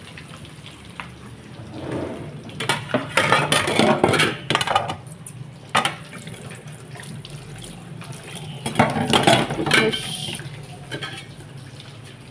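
Water running from a tap into a stainless-steel kitchen sink, with dishes and utensils clattering in two louder stretches, about two to five seconds in and again around nine seconds.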